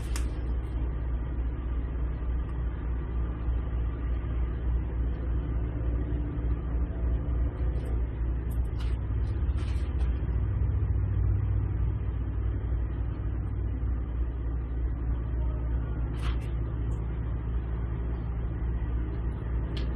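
A motor running steadily: an even, low rumble with a few faint clicks.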